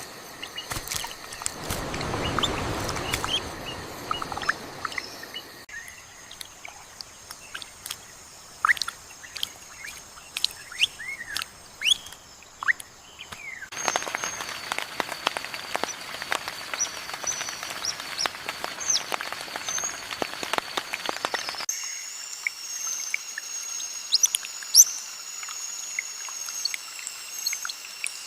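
Outdoor nature ambience with many short bird chirps, changing abruptly several times. A noisy hiss fills the first few seconds and the middle stretch, and a steady high-pitched drone sits under the chirps near the end.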